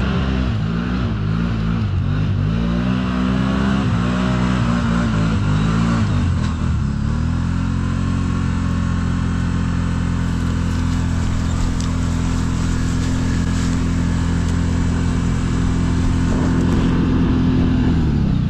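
ATV engine revving up and down in quick blips, then held at steady high revs for about ten seconds while the quad struggles up a steep slope and gets stuck on the climb; the revs drop near the end.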